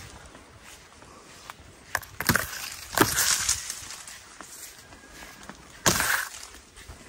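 Rustling and crunching of dry leaves and palm fronds as someone walks through them, in three short loud bursts, about two and three seconds in and again near the end.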